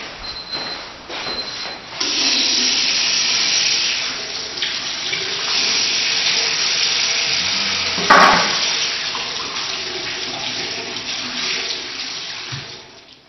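A few short, high-pitched watch alarm beeps, then a tap is turned on about two seconds in and water runs steadily into a sink, with a single knock about eight seconds in.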